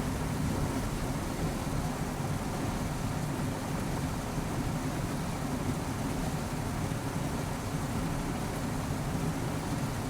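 Car wash running: a steady, even rush of noise, heaviest and rumbling in the low range, with no distinct knocks or changes.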